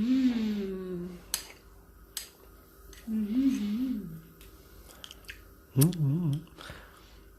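A person eating a bite of soft pumpkin maja blanca and humming 'mmm' in enjoyment three times, with a few light clicks between the hums.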